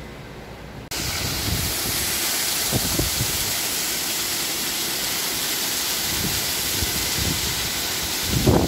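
Water gushing from a pipe outlet and splashing down into a membrane bioreactor tank: a loud, steady rush that starts abruptly about a second in. There are a few louder low thumps near the end.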